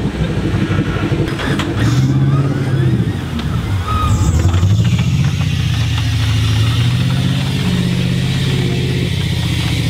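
Competition 4x4 truck's engine running and revving. The pitch rises about two seconds in, dips, rises again about four seconds in, then holds a fairly steady rev.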